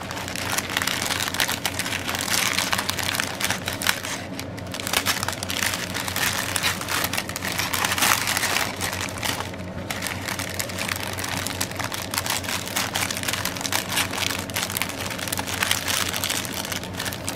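Clear plastic zip-lock bags crinkling and rustling continuously as they are handled, full of small crackles.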